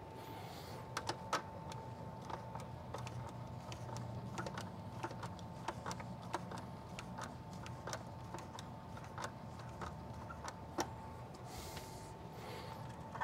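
Small irregular clicks and ticks of a screwdriver turning a terminal screw and seating a stranded ground wire in a metal timer box, over a steady low hum.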